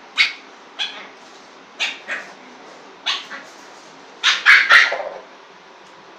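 Lhasa apso puppy yapping in short, sharp barks, singly and in pairs, with a quick run of three about four seconds in.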